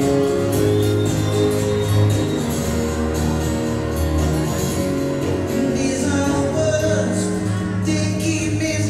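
Live acoustic band music: an acoustic guitar strummed with a violin playing held notes, and a man singing over them.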